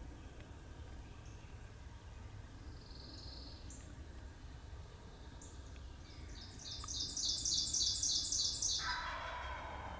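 Woodland songbirds calling: a few faint high chirps and a short whistle, then a loud, rapid run of repeated high notes for a couple of seconds about two-thirds of the way in. A lower, rougher sound follows near the end.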